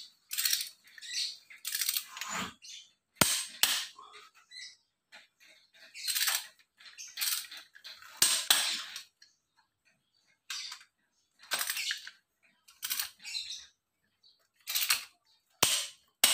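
Ratchet wrench clicking in short bursts as cylinder head bolts on a Mitsubishi L300 diesel engine are turned down and torqued, with a few single sharp metallic clicks in between.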